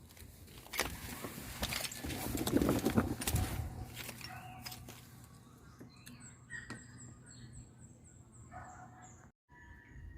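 Rustling and clattering, loudest two to three seconds in, followed by a bird's run of short high chirps, about three a second.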